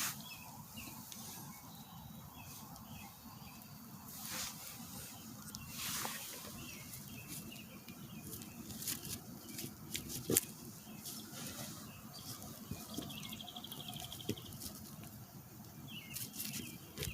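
Scattered ticks of drizzle drops pattering, with faint bird chirps and a short buzzing trill about thirteen seconds in.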